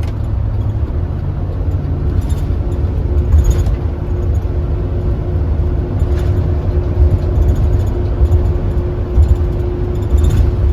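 Steady low road and engine rumble inside a moving vehicle's cabin, with a faint steady hum running under it.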